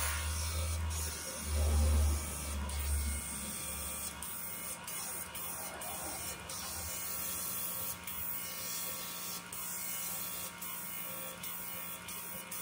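A small electric motor running steadily with a high hiss and a faint whine, with light clicks every second or so. A low rumble is under it for the first few seconds.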